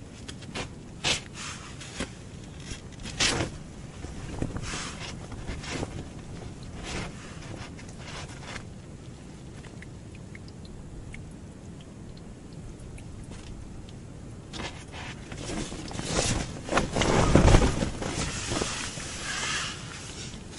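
Handling noises from a short ice-fishing rod and the angler's clothing: scattered small clicks and brief rustles, then a louder spell of rustling and scraping near the end.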